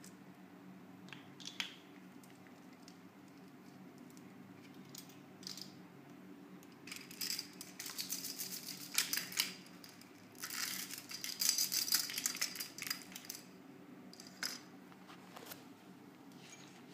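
Plastic hair accessories and beaded hair ties clicking and rattling against each other as they are handled and hung on a stand, in scattered bursts that are busiest about seven to nine seconds in and again from about ten to thirteen seconds in. A low steady hum runs underneath.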